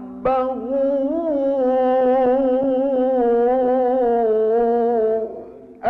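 Male Qur'an reciter chanting in the melodic mujawwad style: the word "rabbahu" is drawn out into one long, gently wavering held note of about five seconds, which fades off near the end.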